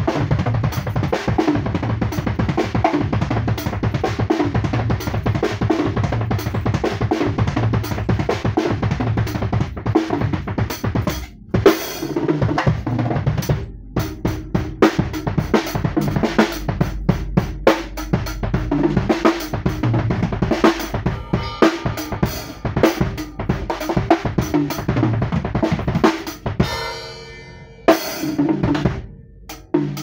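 Acoustic drum kit played live: a fast, busy pattern of bass drum, snare and cymbals. It breaks off briefly a little over a third of the way in, comes back with a sharp accent, and pauses again briefly near the end.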